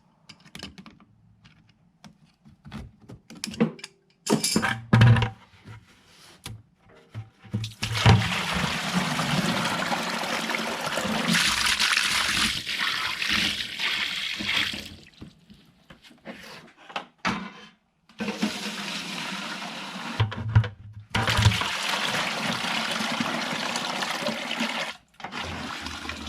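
Standing water gushing out of a washing machine onto the floor in two long spells, after some knocks and clinks of parts being handled.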